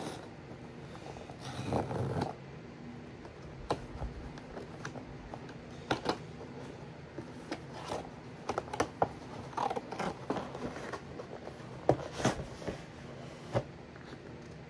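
A camera's retail box being opened by hand: cardboard scraping and rustling, with a longer scrape about a second and a half in and then a run of quick clicks and taps as the inner box and packaging tray are slid out.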